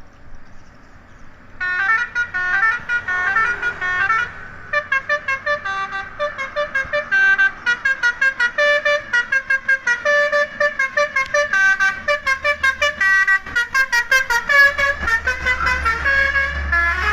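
Basuri multi-tone horn on a container truck playing a quick melody of short, changing notes, starting about a second and a half in. A low engine rumble comes up in the last few seconds.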